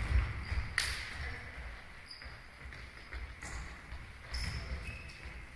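An indoor football is kicked on a sports-hall floor, with a sharp strike about a second in and fainter knocks later, echoing in the hall. Short squeaks of trainers on the floor come in between.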